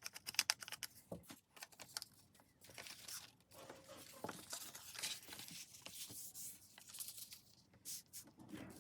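Paper being handled and torn by hand: rustling, crinkling and tearing, with many small clicks and taps.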